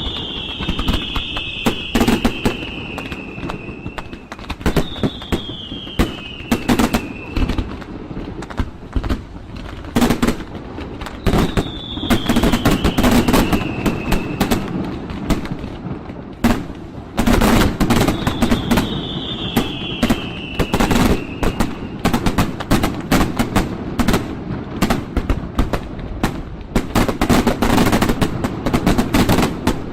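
Fireworks going off nonstop: rapid runs of bangs and crackles, like strings of firecrackers. Four times a high whistle sounds, each falling in pitch over two to three seconds.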